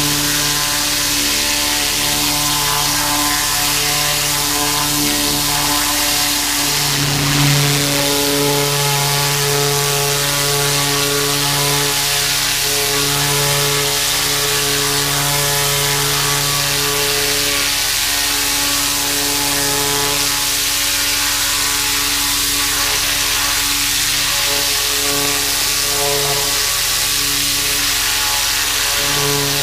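A 4,000 PSI gas-engine pressure washer running steadily, its engine note wavering slightly under load, with the hiss of the zero-tip jet spraying a hanging deer hide. There is a brief louder surge about seven seconds in.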